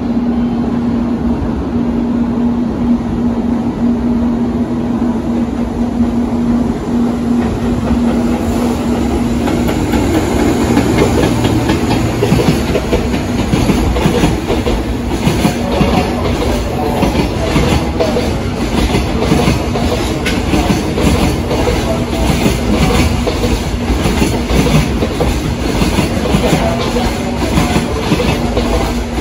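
EF210 electric locomotive running past with a container freight train, the wagons following with a steady rhythmic clickety-clack of wheels over rail joints. A steady hum is heard during the first third, before the train noise builds.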